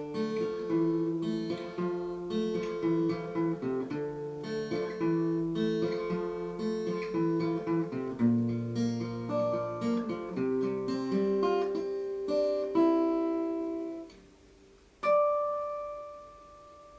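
Acoustic guitar playing the closing bars of a song: picked and strummed chords that stop about 14 seconds in, then one last note struck about a second later and left ringing.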